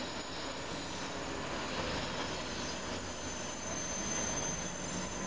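Freight train of tank wagons rolling away along the track: a steady low rumble of wheels on rail.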